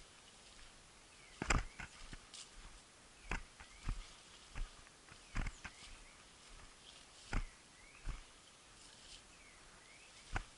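Irregular crunches and snaps of dry leaves and twigs, as of footsteps pushing through dry winter scrub, about one every second or two; the loudest comes about a second and a half in. Faint high chirps, dipping and rising, repeat between them.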